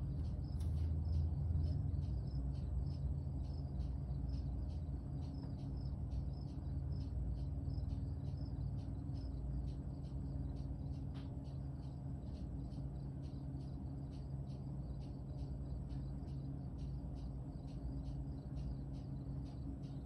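A cricket chirping steadily, about three short chirps a second, over a steady low rumble.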